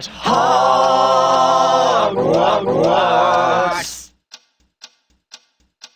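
Several voices singing unaccompanied in held harmony, closing on a shouted 'Hogwarts!' about four seconds in. Then a quiet ticking follows at about two ticks a second: the ticking of a hidden pipe bomb.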